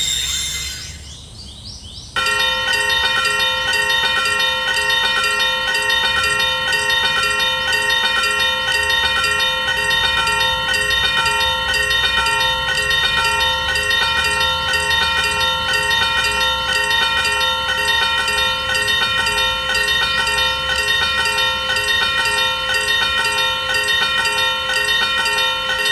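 Level-crossing warning bell ringing in a fast, even kan-kan rhythm. It starts suddenly about two seconds in and runs on without a break.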